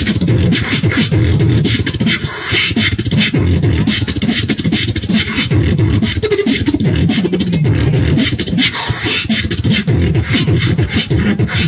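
Fast beatboxing: a rapid, unbroken stream of mouth-made drum hits and clicks over a hummed bass line.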